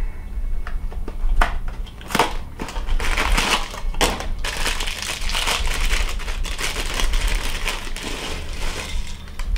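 A small single-serve cardboard cereal box torn open with a few sharp snaps, then its plastic liner bag crinkled and ripped. Dry cereal is poured from the bag into a bowl near the end.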